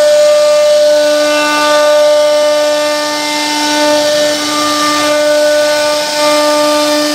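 A CNC router spindle whines at a steady pitch as its carving bit cuts into a wooden door panel, with a hiss from the cut. Some of the overtones come and go, and the sound dips briefly a few times as the load on the bit changes.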